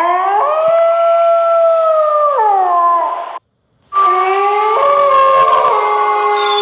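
German Shepherd howling: a long howl that rises, holds steady and slides down, cut off abruptly about three and a half seconds in. After half a second of silence, another long, steady howl starts and steps down in pitch twice.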